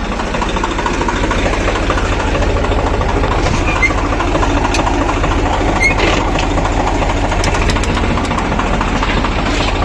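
Swaraj tractor's diesel engine running steadily at idle, with an even, rapid chugging.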